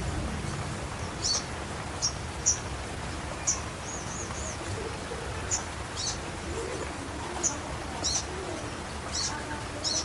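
Sogon bird giving short, high chirps at irregular intervals, about a dozen of them, with a brief wavering call about four seconds in, over a steady background hiss.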